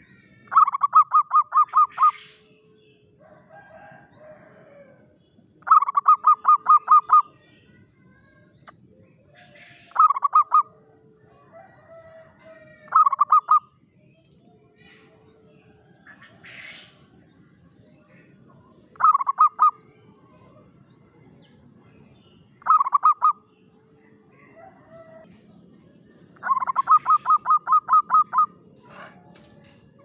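Zebra dove (perkutut) cooing in phrases of rapid staccato notes, seven phrases in all: long ones at the start, about six seconds in and near the end, with shorter ones between.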